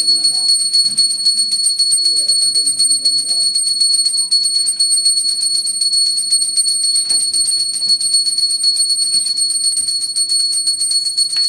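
Background music with a fast, even rhythm of high percussion.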